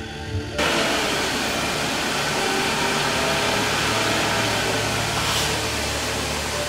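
Steady rushing noise of factory machinery, like an air blower, cutting in abruptly about half a second in.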